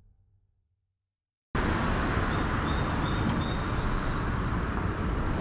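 Silence, then after about a second and a half steady outdoor street noise with a low traffic rumble cuts in suddenly, with a few short bird chirps soon after.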